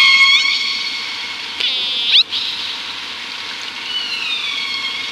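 Orca (killer whale) calls: high, pitched calls that glide down and level off, a quick rising pulsed call about two seconds in, and a long falling call near the end, over a steady hiss.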